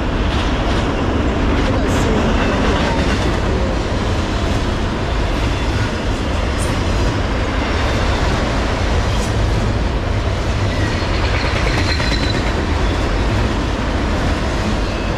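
Autorack freight cars rolling past at track speed: a steady rumble and rattle of steel wheels on rail, with a few sharp clicks.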